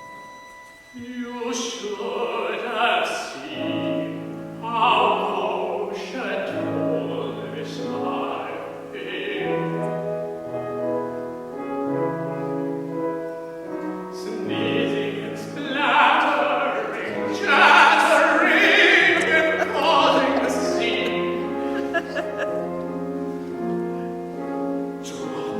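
Operatic singing over instrumental accompaniment, the voice holding and moving between notes over sustained low notes.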